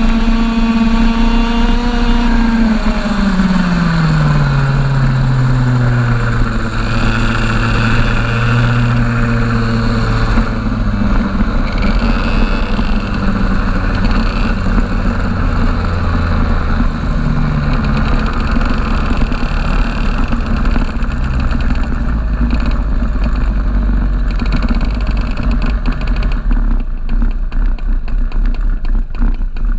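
A TAG racing kart's 125cc two-stroke engine, heard from on board: high revs for a couple of seconds, then the pitch falls as the kart slows, and it runs at low revs as it rolls on at low speed for the rest.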